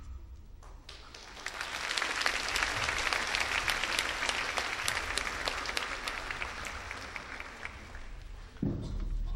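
Audience applauding, building about a second in and fading out near the end.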